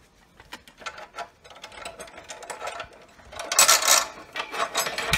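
Metal clicking and rattling as a square steel tube is shifted and clamped in the vise of an abrasive cut-off saw, with two louder scraping rattles about three and a half and four and a half seconds in.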